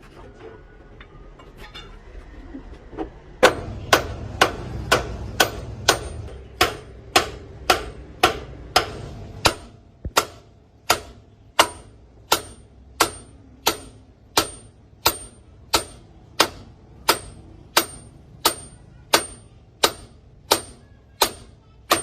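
Hammer striking metal in a steady rhythm, about three blows every two seconds, each blow ringing sharply. The blows start about three and a half seconds in, after some faint light taps, and a low hum runs under the first several of them.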